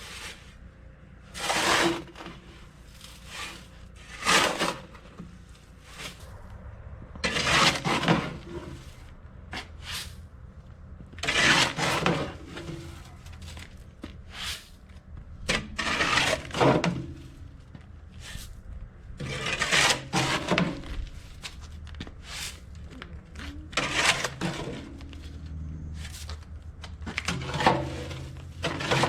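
A shovel scraping and turning through a wet, chunky mortar mix in irregular strokes, one every one to four seconds.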